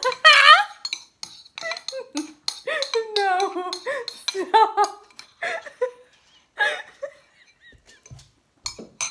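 Two women laughing hard, loudest in a high-pitched burst right at the start, with metal spoons clicking and clinking against their bowls. It dies down to a few scattered clicks after about seven seconds.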